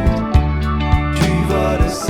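Band music playing, with sustained bass notes and a few sharp drum hits.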